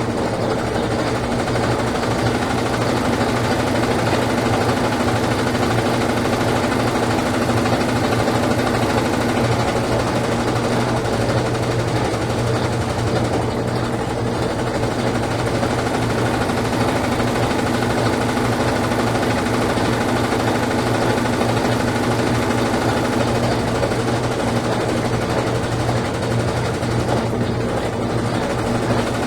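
Brastemp Ative 11 kg (BWL11) top-loading washing machine in its spin cycle: the motor and spinning drum give a steady hum and whir that stays even throughout.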